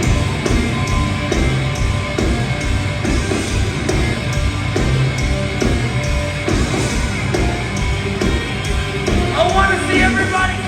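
A heavy rock band playing live and loud, with drums keeping a steady beat and a sung, shouted vocal coming in near the end.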